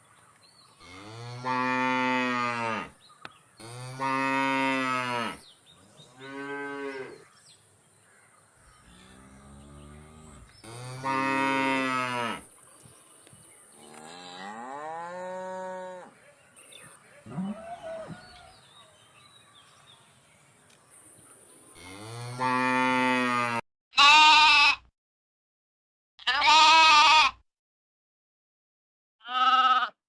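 Cattle mooing, a series of about seven long, low moos with pauses between them. Near the end come two short, louder, wavering sheep bleats.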